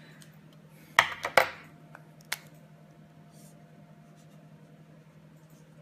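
Felt-tip marker drawn hard and fast across paper, a short scratchy stroke with a few sharp peaks about a second in, followed by a single tap about a second later. A steady low hum sits underneath.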